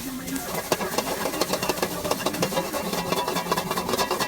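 Close-up eating sounds: crispy fried noodles being crunched and chewed, a dense run of crisp crackles starting about half a second in.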